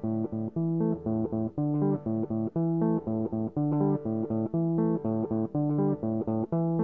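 Background music: plucked guitar notes over a bass guitar line in a steady, quick rhythm.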